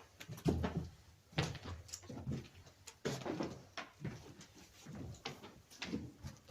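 Footsteps on an uneven tunnel floor: irregular steps about one or two a second, each a short scuffing thud.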